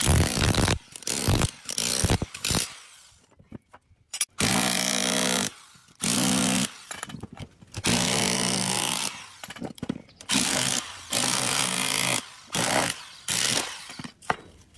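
Handheld power tool run in repeated short bursts of about a second each, with brief pauses between, while working on an electric motor being dismantled.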